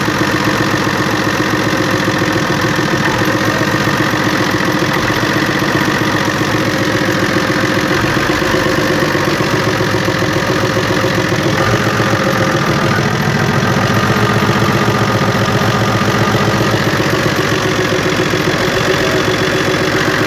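FNM 180 truck's diesel engine running steadily at idle, just brought back to life after about three years standing.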